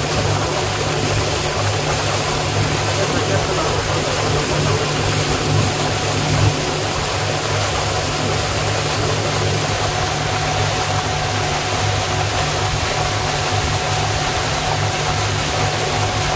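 Abra water taxi's engine running steadily underway, a low even hum, with water rushing along the hull.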